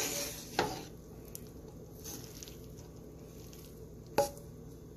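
Spatula stirring and scraping fried rice around a nonstick pan, loudest in the first half second and then faint, with one sharp knock about four seconds in.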